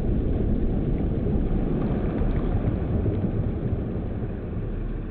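A deep, drawn-out rumble from a 12-gauge shotgun blast slowed down, holding steady and then dying away near the end.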